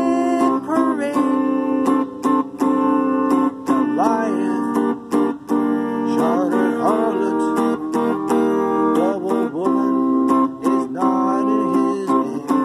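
Electric guitar playing held chords in a song, with a man's voice singing a melody over it at times.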